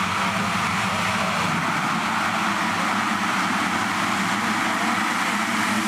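A field of motocross bikes' engines running together on the start line, a steady loud drone, as the riders wait for the start.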